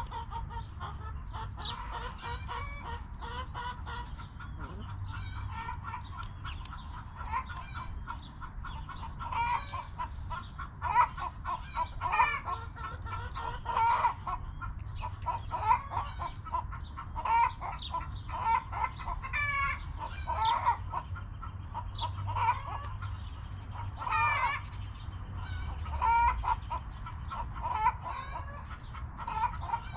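Backyard hens clucking continuously, many short repeated clucks with now and then a louder, drawn-out call.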